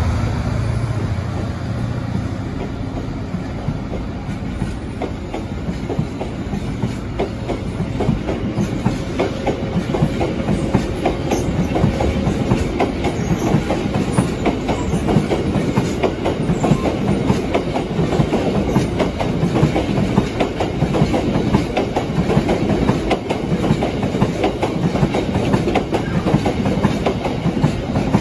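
A long rake of GB Railfreight JNA open box wagons rolling past at close range behind a Class 66 freight locomotive. The wheels clatter over the rail joints in a fast, continuous clickety-clack, with body rattle over a low rumble.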